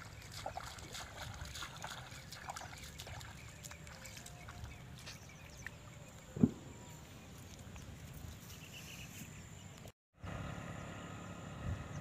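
Footsteps splashing through shallow water and mud, with one loud thump about six and a half seconds in. The sound cuts out for a moment about ten seconds in.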